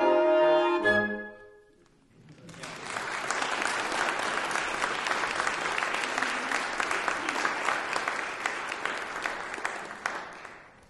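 A woodwind quintet of French horn, flute, bassoon, oboe and clarinet holds its final chord, which dies away a second or so in. After a brief pause, an audience applauds for several seconds, fading out near the end.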